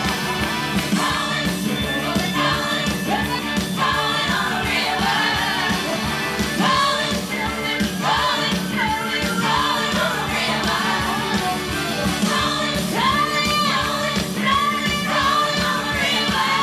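Loud pop-rock song with a singing voice over a steady beat, accompanying a stage dance number.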